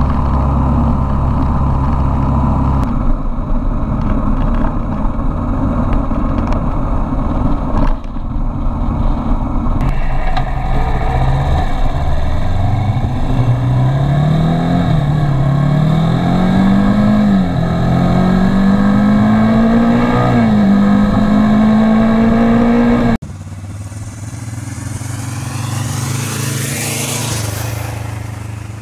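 1981 Suzuki GS450L's parallel-twin engine running under way, in several short cut segments. Through the middle it accelerates, its pitch climbing in steps with drops at the gear changes. Near the end the bike passes by and the sound sweeps down and fades.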